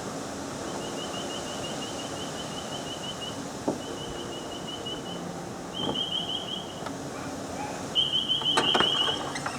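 A high-pitched, rapidly pulsing beep or trill that comes in several runs, with a few sharp knocks in between, over wind noise.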